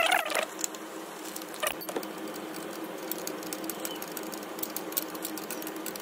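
Rapid light metallic clicking of a wrench tightening a bolt on a motorcycle's gear-shift linkage, over a faint steady hum.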